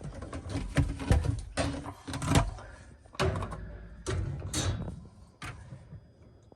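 Plastic dishwasher parts being handled while the filter is taken out: a string of separate knocks and clunks, dying away near the end.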